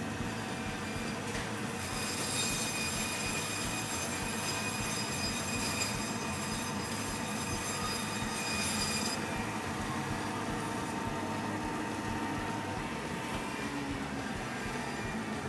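Biro meat bandsaw running with a steady, many-toned whine as its blade cuts the chine bone off a pork loin. The sound is harsher and brighter from about two to nine seconds in, while the blade is in the bone.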